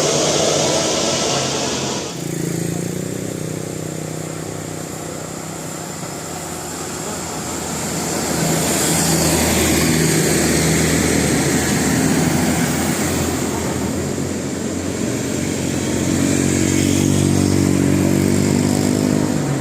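Road traffic passing: vehicle engines, including motorcycles and buses, running and accelerating. The sound changes abruptly about two seconds in, and grows louder again in the second half.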